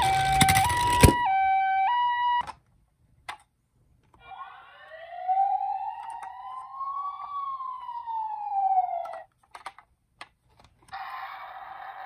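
A toy ambulance's two-tone hi-lo siren sounds over the rumble of its wheels on a wooden table, with a sharp knock about a second in. The siren stops after about two seconds. After a pause, a battery-powered toy ambulance's electronic siren wails once, rising slowly and then falling, followed by a few clicks, and a steady buzzing electronic sound starts near the end.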